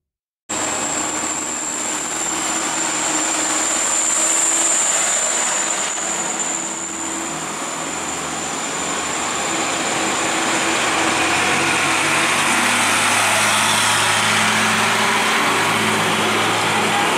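Road traffic starting abruptly about half a second in: a car driving past, then a truck's engine running close by and growing louder over tyre and road noise. A high steady whine sounds through the first half.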